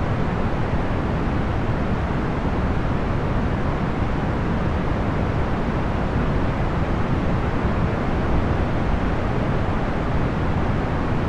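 Procedurally generated box fan noise: a steady, even rush weighted toward the low end, with little high hiss and no motor hum or clicks.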